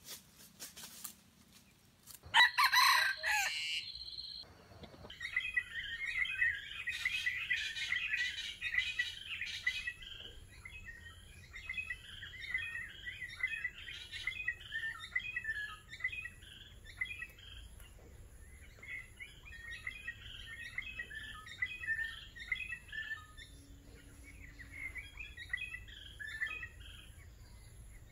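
A red junglefowl rooster crows once, loud, about two seconds in. Afterwards comes a steady chatter of small birds chirping and twittering, over a faint, even, high insect trill.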